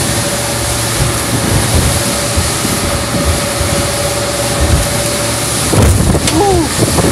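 Boat running through choppy sea: wind buffeting the microphone and water rushing and splashing against the hull, with a steady hum that drops away about six seconds in.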